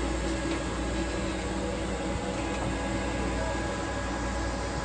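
Steady machinery hum in a motor yacht's engine room: a low rumble with several steady tones over it.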